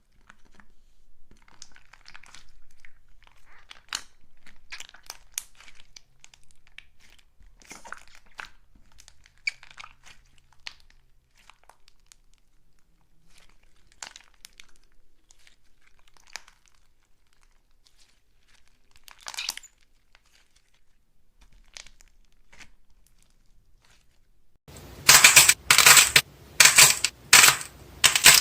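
Close-miked crackling, crinkling and small crunches from slime or clay being squeezed and pulled apart by hand, scattered and fairly quiet. About 25 seconds in, a run of much louder, sharp crunching strokes begins, about two a second.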